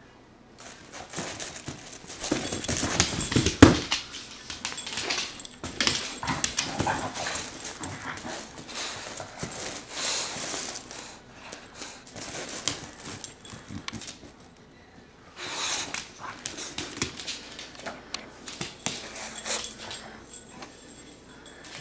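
English bulldog breathing noisily and chewing on a plush toy: irregular bursts of breath and mouth sounds with a few short lulls, the loudest about three and a half seconds in.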